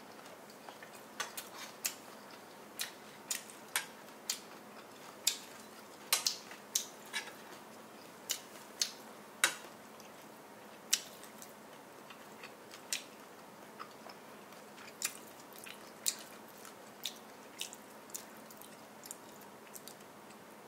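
Metal fork clinking and tapping against a glass bowl while scooping fried rice: irregular sharp clicks, a few much louder than the rest, over a faint steady hiss.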